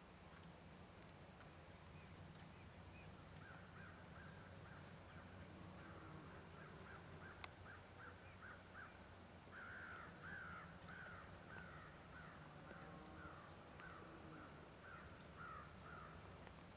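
Faint, distant animal calls: a long run of short repeated notes, a few a second, getting stronger about ten seconds in. A single sharp click sounds about seven and a half seconds in.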